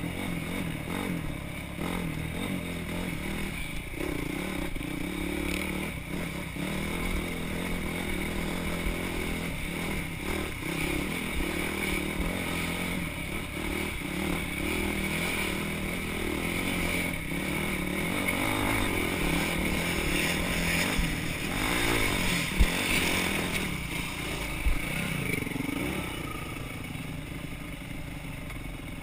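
Off-road motorcycle engine running, its revs rising and falling as it rides, with two sharp knocks late on.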